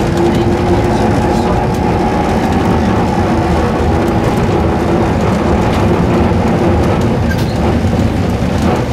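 Sassi–Superga rack tramway car running along the track, heard from inside the driver's cab: a steady rumble with a faint whine.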